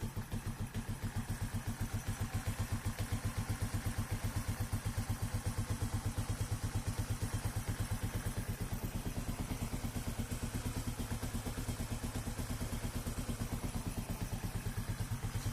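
Corven Energy 110's small single-cylinder four-stroke engine idling with a steady, even pulse, just after being reassembled. It is running smoothly, "hecho una seda" (smooth as silk).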